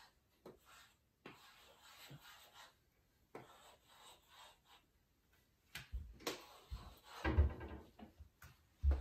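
Chalk scraping across a hard floor in short scratchy strokes, as lines are drawn. In the second half come louder knocks and thumps.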